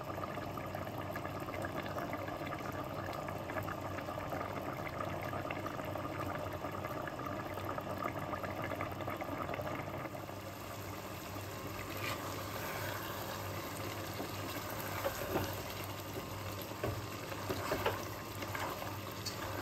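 Mutton stock boiling hard in a pot on high flame, bubbling and crackling steadily as it reduces down to a thick gravy, with a few sharper clicks in the second half.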